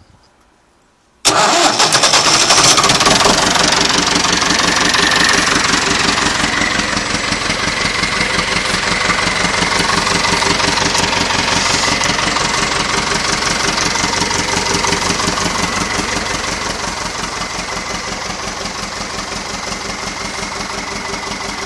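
Nuffield 805 tractor's diesel engine firing up about a second in on its first start after a full engine rebuild, then running with a steady, even beat that eases slightly as it settles.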